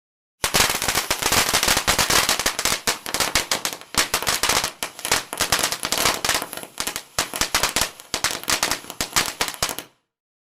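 A rapid, continuous run of sharp crackling pops, like a string of firecrackers going off. It starts suddenly about half a second in and cuts off abruptly near the end.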